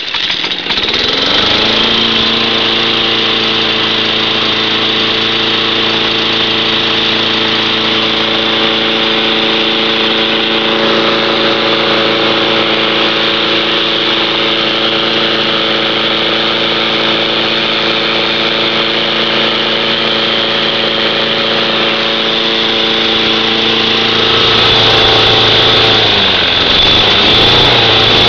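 Cub Cadet lawn mower's Kawasaki engine running just after a cold start. Its speed rises over the first couple of seconds, then it runs steadily. About 25 seconds in, the engine note changes and gets a little louder.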